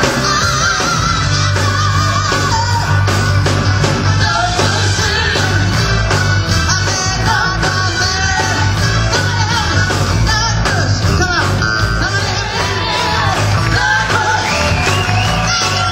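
A woman singing lead in a rock and roll number over a live band with drums, bass and guitar, her voice wavering with vibrato.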